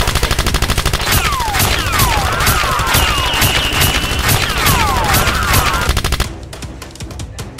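Rapid automatic gunfire sound effects, used in place of the toy blasters' own sound, with falling and swooping whistles like passing bullets. The firing stops about six seconds in.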